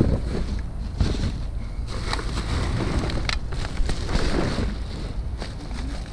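Wind buffeting the microphone in a steady low rumble, with scattered knocks and rustling from items being handled while rummaging through a dumpster.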